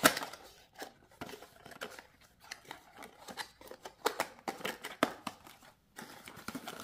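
Cardboard box being opened by hand, a run of small clicks, scrapes and rubs as the tuck flap is pulled free and the paperboard inner tray slides out. Near the end a continuous crinkling rustle starts as the plastic wrapping inside is handled.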